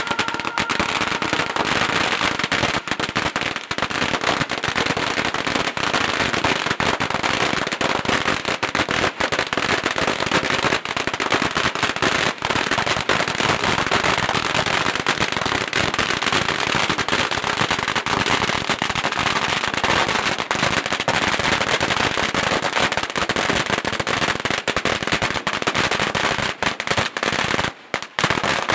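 Long strings of firecrackers going off in a dense, unbroken rattle of rapid pops, with a brief gap near the end.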